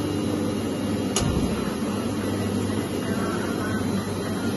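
Steady mechanical drone with a low hum, like machinery or a fan running, and one sharp click about a second in, a metal part knocking on the steel table.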